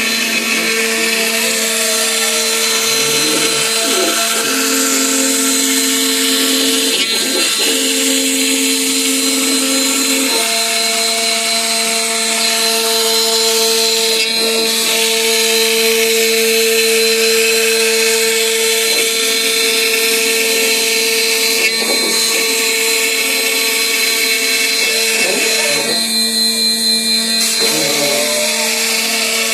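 Large CNC router running while cutting MDF board: the spindle holds a steady high whine over a hiss of cutting noise, and other tones glide up and down now and then as the machine's axes speed up and slow down.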